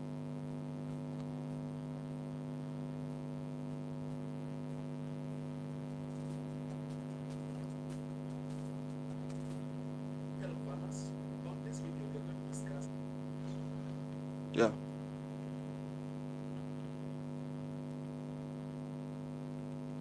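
Steady electrical mains hum, a low buzz that holds unchanged, with one short knock about fifteen seconds in.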